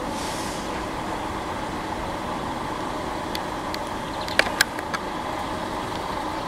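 Steady hum of an idling vehicle engine and outdoor background. A few sharp clicks break in around the middle, two of them loud and close together.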